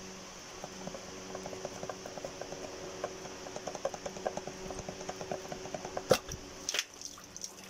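Transmission fluid dripping from a 2015 Chevrolet Tahoe's transmission into a drain pan, a quick irregular patter of drops as the pan and filter come off. Two sharp knocks a little after six seconds in.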